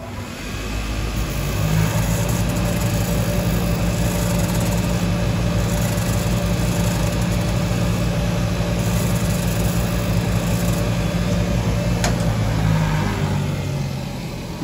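Shoe finishing machine's motor spinning up, then running with a steady hum while a boot sole is pressed against its sanding wheel, then winding down near the end.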